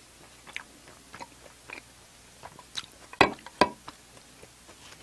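A person chewing food close to the microphone: scattered wet mouth clicks and smacks, with two louder sharp smacks about three seconds in.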